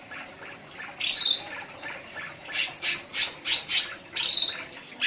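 Cucak ranti leafbird singing in full song: a high, falling slurred note about a second in, then a quick run of five short notes, another slurred note and one more near the end.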